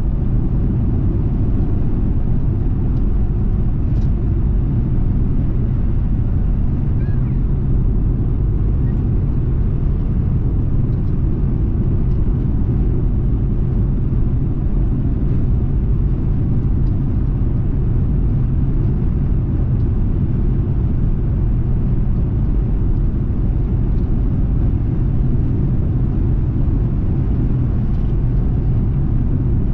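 Steady low rumble of tyre, engine and wind noise inside a car cruising at highway speed.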